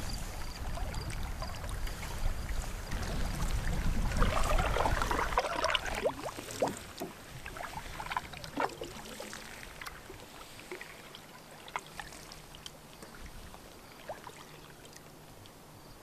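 Wooden canoe paddle strokes dipping and pulling through calm water, with scattered drips and light splashes. A low rumble fills the first five seconds or so, and the sound then grows quieter.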